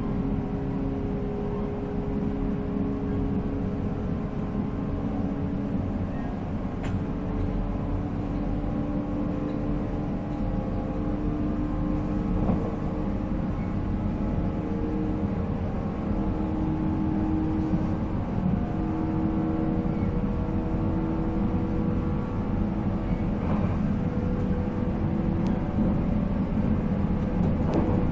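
Running sound inside a JR 485-series electric train at speed: the MT54 traction motors hum in several steady tones over the even rumble of wheels on rail.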